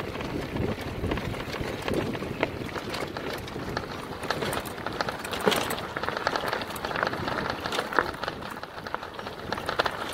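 Cargo bike and trailer riding over a bumpy gravel track: steady crunching of tyres on loose stones, with frequent rattles and knocks from the loaded bike and trailer.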